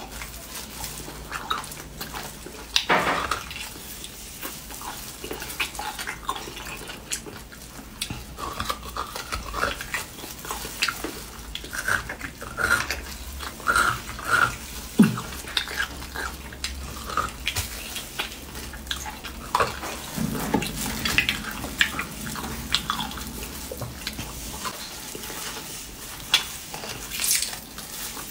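Close mouth sounds of someone slurping and sucking beef bone marrow out of a split bone and chewing it, wet, with many short clicks and smacks throughout.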